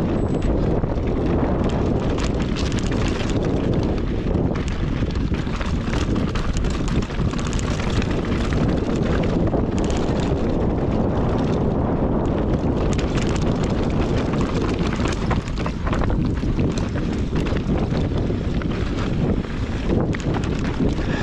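Steady wind buffeting the microphone of a rider descending a dirt mountain-bike trail, under a constant rumble and small rattles from the ride.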